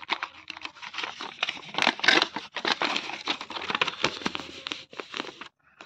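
Packaging crinkling and rustling as it is handled, a dense run of irregular crackles, loudest about two seconds in.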